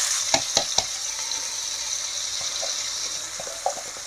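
Chopped onion sizzling in hot oil in a steel kadhai, the hiss easing off. In the first second come a few sharp taps as the plastic chopper bowl is knocked against the pan to empty it.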